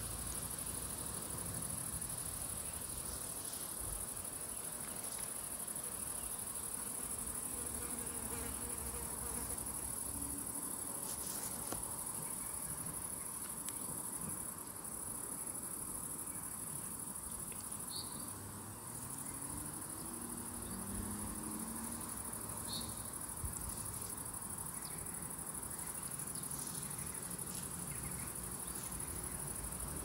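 Crickets chirring steadily in a continuous high-pitched drone, with a couple of brief bird chirps, one about eighteen seconds in and another about five seconds later, over a low background rumble.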